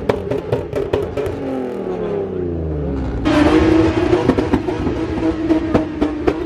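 Car engine being revved: its revs fall away over about three seconds, then it is suddenly held at high, steady revs with a loud exhaust, with sharp cracks throughout.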